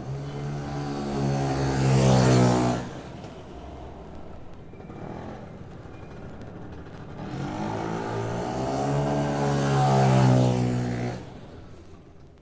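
A car going by twice, about eight seconds apart. Each time the engine note builds steadily as it approaches and drops away quickly just after it passes.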